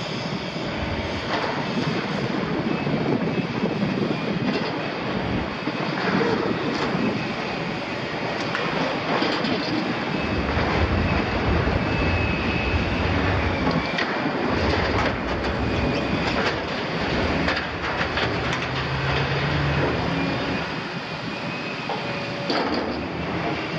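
Liebherr 974 demolition excavator's jaws tearing and crunching the steel plate of a double-walled oil tank: steady metal clatter and screeching with repeated clanks, over the machine's running diesel engine and hydraulics.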